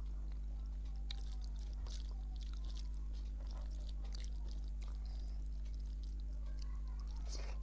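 Close-up chewing and wet mouth clicks of someone eating a rice meal of dal, fish curry and fried brinjal, as irregular small clicks over a steady low electrical hum.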